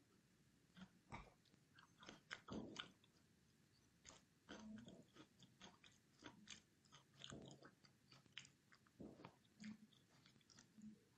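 Faint mouth sounds of someone eating and drinking close to the microphone: short, irregular chewing clicks and small crunches.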